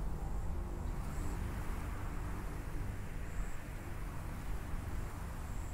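A steady low rumble, with faint short high chirps every second or two.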